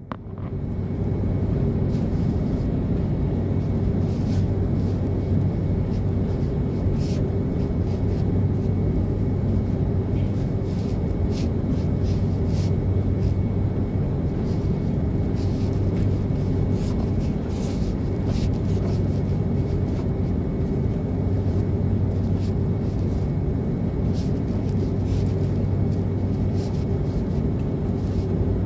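Jet airliner cabin noise during taxi: a steady low engine rumble and hum, with faint ticks and rattles now and then.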